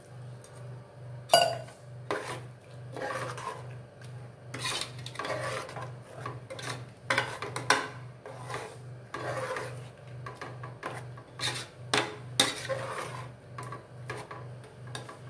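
Stainless-steel ladle stirring a watery masala in an aluminium pressure cooker, scraping metal on metal in irregular strokes about once or twice a second. A low pulsing hum runs underneath.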